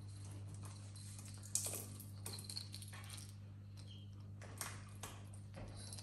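Male eclectus parrot handling a small metal jingle bell toy in its beak: a handful of sharp clinks and brief jingles, the loudest about a second and a half in, over a steady low hum.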